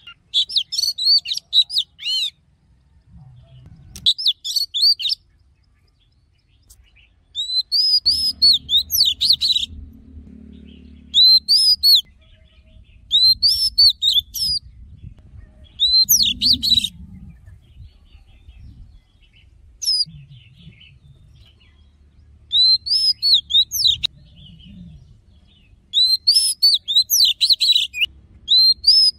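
Oriental magpie-robin singing in repeated short phrases of quick, sharp whistled notes, with pauses of a second or more between phrases.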